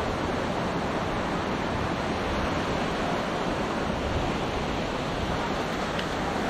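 Small waves breaking and washing up a sandy beach, a steady rush of surf, with wind rumbling on the microphone.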